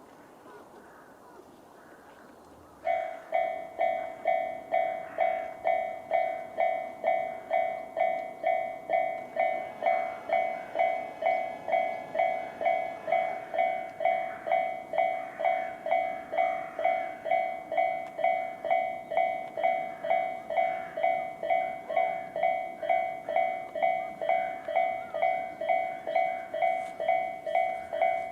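Electronic warning bells of a Japanese railway level crossing start ringing about three seconds in, a steady, evenly repeating ding at about two strikes a second. The two sides of the crossing use different Tobu bell sounds, A and C.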